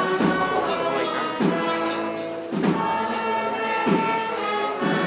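Wind band playing a slow processional march, sustained brass chords over a drum beat that falls about every 1.2 seconds.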